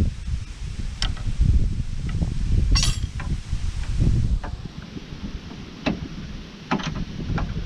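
Metal tools clinking and knocking irregularly while working on a car's rear wheel hub, with one sharper ringing clink about three seconds in, over wind rumbling on the microphone.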